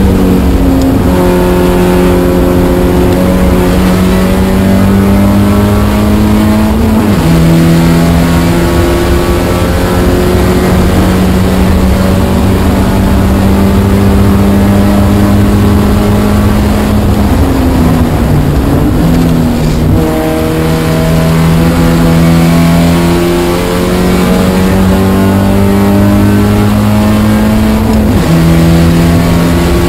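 Spec Miata's four-cylinder engine running hard on track, its note climbing steadily under throttle. The revs step down at an upshift about seven seconds in and again near the end, and fall away and waver with braking and downshifts about two-thirds of the way through.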